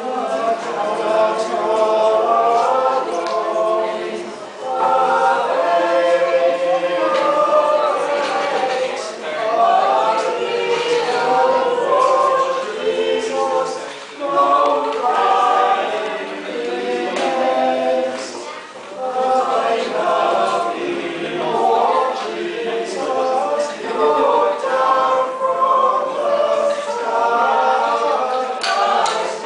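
Small mixed choir of men and women singing a carol together, phrase by phrase, with brief pauses for breath between phrases.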